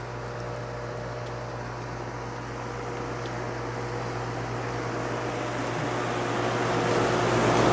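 Outdoor air-conditioning condensing unit running: a steady low hum under a rushing fan noise that grows gradually louder toward the end.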